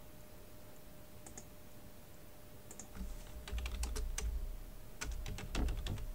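Computer keyboard typing: a quick run of keystrokes starting about halfway in, typing out a short phrase, with a low rumble under the keys.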